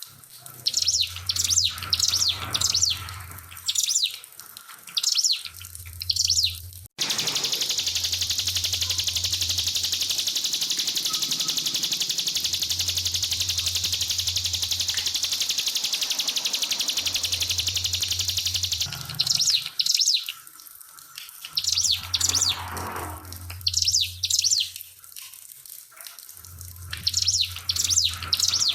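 Ciblek pinus, a prinia, singing short high chirping phrases, then breaking about seven seconds in into a long, continuous rapid-fire song lasting about twelve seconds, before returning to short phrases. Trickling water runs underneath.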